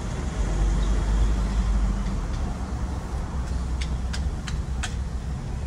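A car on the move: a steady low rumble of engine and road noise. Four or five sharp clicks come in quick succession about three and a half seconds in.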